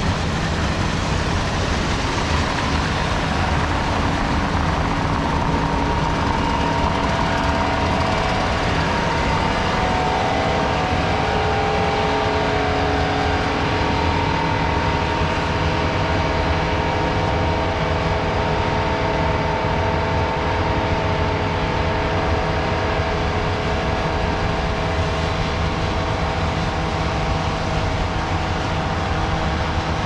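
Steady machine noise: a constant rush with several whining tones that drift slowly up and down in pitch.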